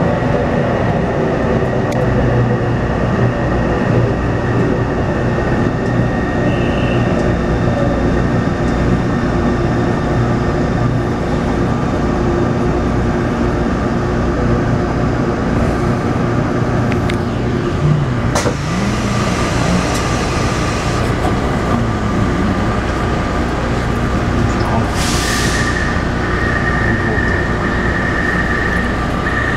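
Taipei Metro C301 train with retrofitted propulsion inverters running, heard inside the passenger car: a steady rumble of motors and wheels with several steady whining tones from the inverter, which the uploader calls abnormal inverter noise. A brief hiss comes about 25 seconds in, and a higher steady tone follows it.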